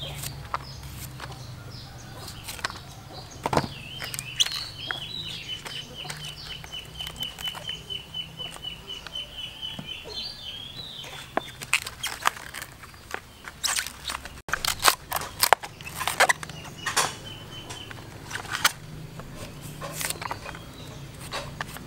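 A knife scraping and chopping at roasted bamboo tubes: sharp clicks and knocks, thickest and loudest in the second half. Through the first half a bird calls in a fast, even series of high peeps.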